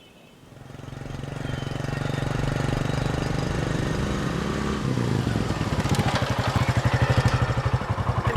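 Motorcycle engine running, fading in about half a second in and growing louder, with a pulsing exhaust beat that gets stronger over the last three seconds.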